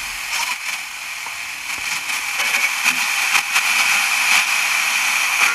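Static hiss from a Trevi 12-band portable radio's speaker as its manual tuning wheel is scrolled between FM stations, steady with scattered clicks and crackles.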